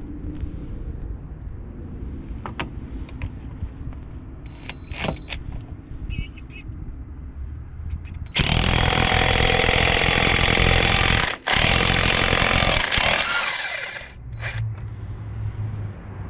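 Craftsman V20 cordless impact wrench, which has a brushed motor, hammering at full power for about three seconds, stopping briefly, then hammering for about two and a half seconds more, over a low rumble.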